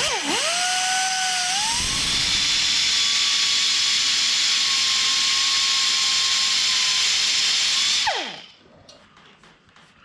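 Small electric power tool switched on, its motor whining steadily over a loud rushing noise for about eight seconds. The whine steps up in pitch about two seconds in, then falls away as the motor winds down when it is switched off.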